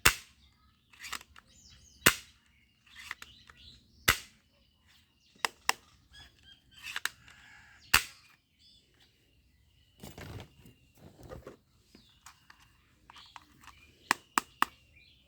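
Plastic toy bead-shooting guns snapping and clicking as they are worked: single sharp snaps every couple of seconds, and a quick run of three near the end. Rustling from handling a little past the middle, and faint bird chirps behind.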